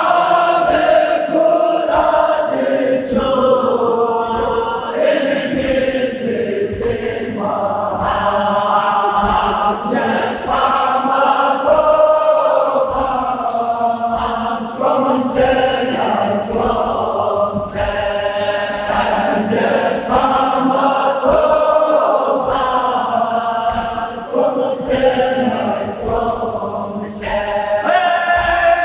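A Balti noha, a Shia lament, chanted in long, drawn-out phrases by a male reciter through a microphone, with many men's voices singing along in chorus.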